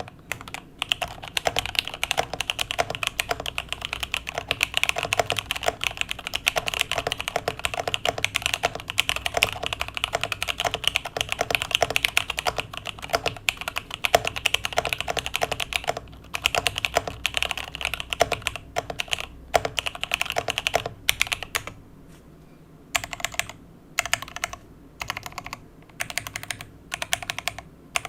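Mechanical keyboard with linear switches being typed on: fast, continuous keystrokes for most of the time, then a short pause and a few separate short runs of key presses near the end.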